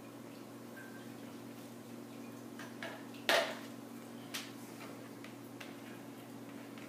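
Soap batter being poured from a plastic bowl into plastic measuring cups, making a few light plastic clicks and one sharper knock about three seconds in, over a steady low hum.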